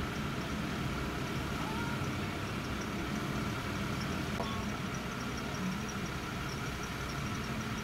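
Engines of parked emergency vehicles idling steadily.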